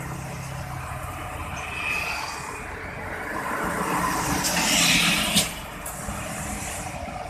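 Diesel cargo truck driving past close by on the road, its engine and tyre noise swelling to a peak about five seconds in, with a sharp knock just after, while a coach's engine hums as it approaches.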